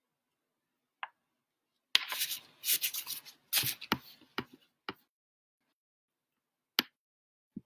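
Handling noises at a desk: a click, then about three seconds of rustling and scraping, then two more sharp clicks near the end.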